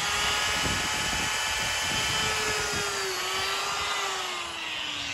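Electric die grinder fitted with a concave eye-cutter bit, running at high speed with a steady whine; its pitch sinks gradually in the last second or so.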